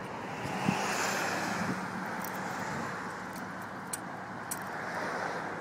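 Steady car noise: a low hum under an even hiss, with a few faint ticks.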